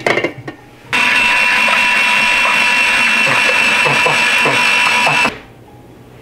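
Electric kitchen drum grater running as apple pieces are pushed down through it and shredded: a steady motor whine with grating noise that starts about a second in, after a few clicks of handling, and cuts off suddenly about four seconds later.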